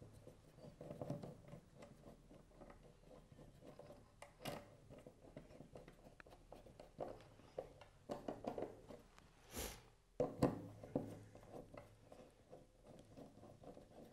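Screwdriver turning the screws of a charge controller's wind-input terminal block while cable ends are pushed in and handled: faint, irregular small clicks and scrapes, with a brief louder rustle about two-thirds through.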